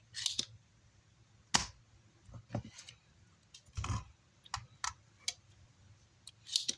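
Irregular clicks and short scrapes of hand tools working on a circuit board as solder is cleaned off the pads, about a dozen separate strokes with pauses between them.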